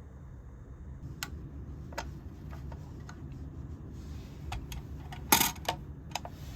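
Scattered light clicks and taps of small hard objects being handled, about ten in all, with a louder clink a little past five seconds in, over a steady low rumble.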